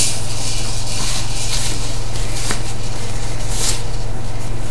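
Steady low electrical hum, with soft rustling of a cloth nappy being folded and handled a few times.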